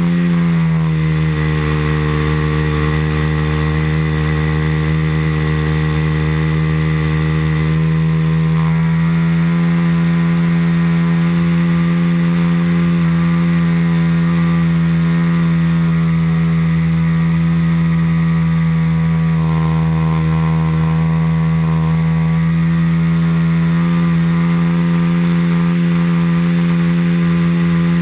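A .90-size four-stroke nitro (glow) engine on an RC airplane running steadily in flight, heard from on board the aircraft. Its pitch drops slightly about half a second in, then holds steady.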